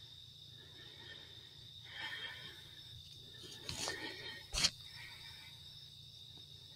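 Night insects keep up a steady, high-pitched chirring. A few faint rustles come through, and one sharp click about four and a half seconds in.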